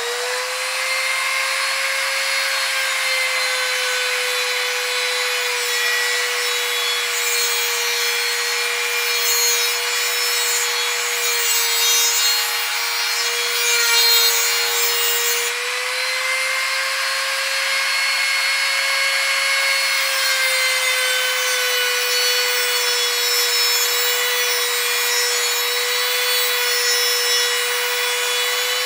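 INGCO mini die grinder (rotary tool) running at full speed with a small abrasive cut-off disc grinding through a steel nail: a steady high motor whine over a harsh grinding hiss, the pitch sagging slightly now and then.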